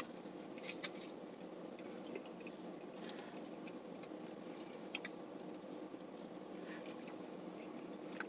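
Soft scattered clicks and mouth noises of eating a piece of stuffed-crust pizza dipped in sauce, over a steady low hum in a car's cabin.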